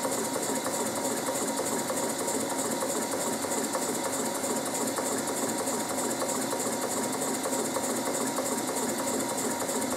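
Märklin 4161/94/11 twin-cylinder toy stationary steam engine running on low-pressure compressed air, a steady rapid mechanical clatter of its cylinders, cranks and belt drive.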